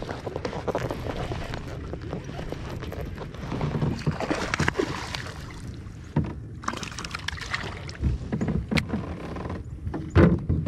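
Water and wind noise around a fishing kayak, with scattered short knocks and clicks against the hull and gear; the loudest knocks come near the end.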